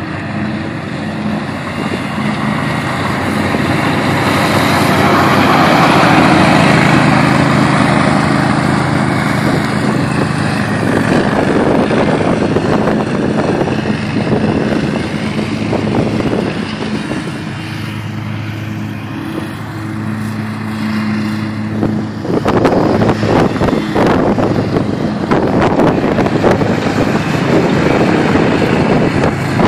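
Hustler Super Z zero-turn mowers running at steady engine speed, their blades cutting through tall dry grass. The engine note shifts in pitch about two-thirds of the way through.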